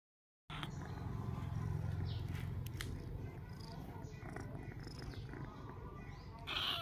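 Domestic cat purring close up, a steady low rumble that is strongest in the first few seconds. Near the end, brighter, louder sounds come in over it.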